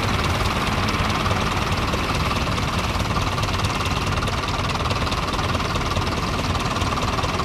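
Fordson Major tractor's four-cylinder engine running at low revs with a steady, rapid knocking beat as the tractor creeps slowly forward onto the balancing ramp.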